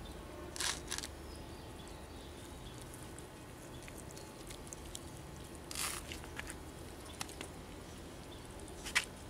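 A puppy eating from a bowl of food: faint chewing and smacking, with a few short louder crunches, about a second in, near six seconds and just before the end.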